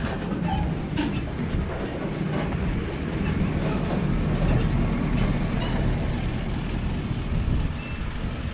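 Kubota KX71 mini excavator's diesel engine running with a steady low rumble and a few light clanks.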